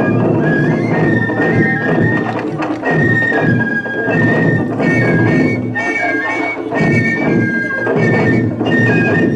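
Ensemble of wadaiko (Japanese taiko drums) struck with sticks, with a high piping melody of held notes stepping up and down over the drumming.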